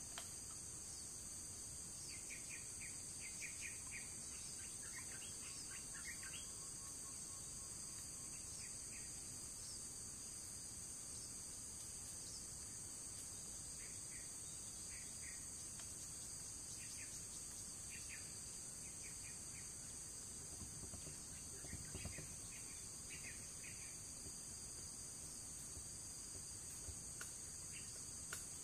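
Steady high-pitched drone of an insect chorus in the forest undergrowth, with brief clusters of short chirps now and then and a soft low bump about three-quarters of the way through.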